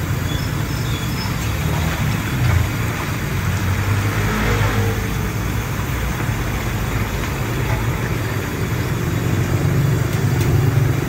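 Steady vehicle engine and road noise with a heavy low rumble.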